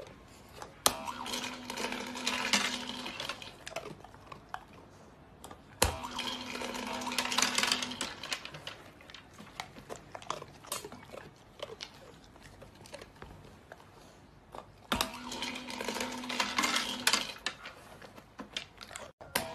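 A dog presses the push-button of a pet food dispenser three times. Each press gives a sharp click, then the motor hums for about two seconds while kibble rattles out into the tray. Quieter clicks and clinks come between the runs.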